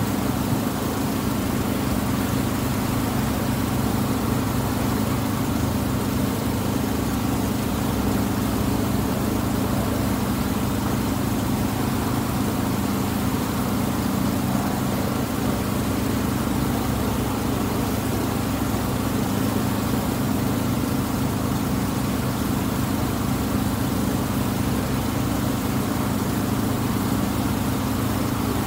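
The engine of the Tuula II, a wooden water bus, running steadily with an even low hum, heard from its deck.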